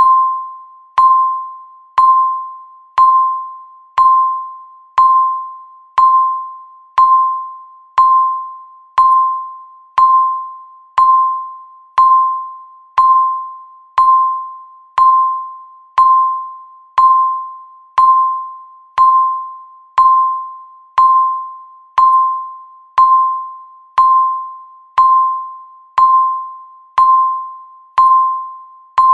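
Countdown timer's electronic tick: a short, bell-like tone of one pitch, struck once a second and fading quickly after each strike.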